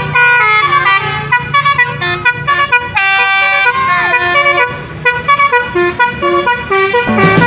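Basuri-style telolet musical horn on a vehicle playing a fast multi-note tune, its notes changing several times a second, with one longer, fuller blast about three seconds in.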